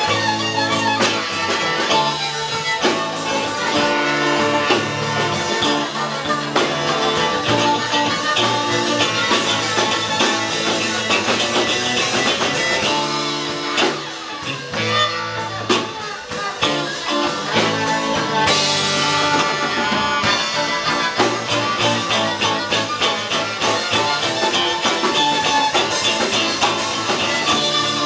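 Live rock-blues band playing, with electric guitar, drum kit and saxophone.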